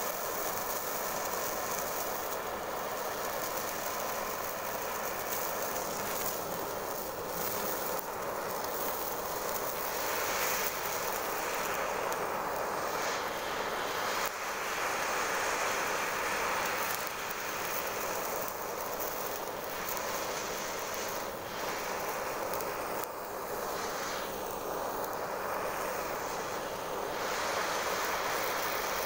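Handheld gas torch flame hissing steadily as it is held against the armoured skin of a large sucker fish, swelling and easing a little as the flame is moved.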